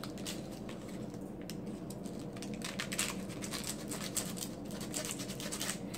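Faint paper rustling and light scattered ticks as candy sticks are dipped and stirred in paper packets of sour candy powder.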